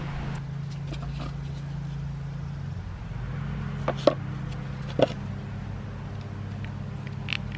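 Steady low motor hum, like a distant engine running, with a few light clicks about four and five seconds in as small plastic grip-shifter parts are handled.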